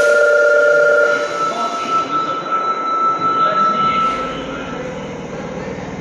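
Subway train pulling out of an underground station platform. A steady electronic warning tone stops about a second in, and the rumble of the moving train builds from about four seconds in.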